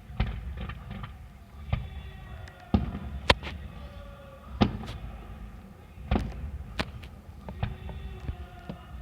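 Fireworks display: aerial shells going off in a run of about nine sharp bangs at irregular intervals, the loudest a little after three seconds in.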